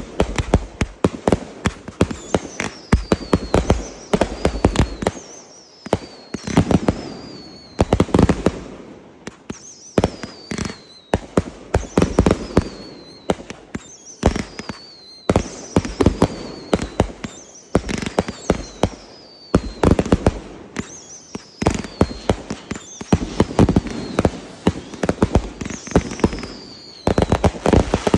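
Aerial fireworks firing shot after shot: launch thumps, bursts and crackling, with a high whistle falling in pitch every second or two.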